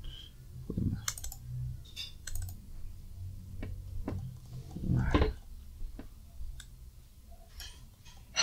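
Scattered single clicks of a computer keyboard and mouse, with a louder low thump about five seconds in.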